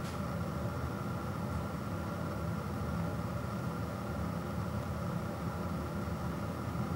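A steady low hum of background machine noise, even and unchanging, with a faint click at the very start.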